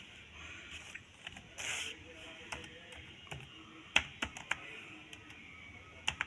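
Keys being typed on a Lenovo ThinkPad T470 laptop keyboard: scattered light clicks as a command is entered, the sharpest about four seconds in.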